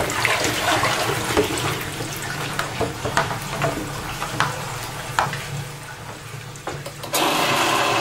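Water splashing and dripping as a baby monkey is handled and washed in a plastic basin, many small splashes that thin out over several seconds. About seven seconds in, a tap is turned on and water runs steadily into the basin.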